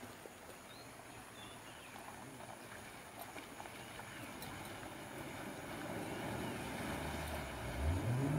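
A vehicle engine revs up sharply near the end, its pitch climbing quickly, as the vehicle drives through deep floodwater over the road. Under it is a steady rushing noise that grows gradually louder.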